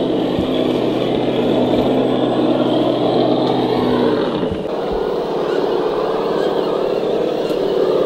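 Radio-controlled scale crawler driving over rock, its electric motor and gearbox running steadily, with a shift in the sound about four seconds in.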